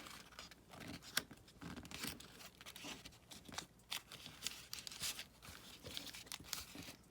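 Paper rustling and crackling as sheets are handled and folded, in short irregular crackles with a sharper snap about a second in.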